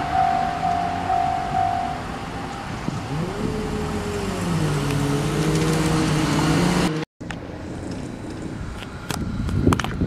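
Japanese railroad crossing alarm ringing steadily, stopping about two seconds in. Several whining tones follow, sliding in pitch. The sound cuts off abruptly about seven seconds in and comes back as a rougher, noisier background.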